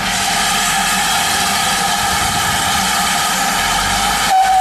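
GWR 5101 Class 2-6-2T steam locomotive blowing off steam through its safety valves: a loud, steady hiss with a ringing tone in it. It starts abruptly and breaks off for a moment near the end.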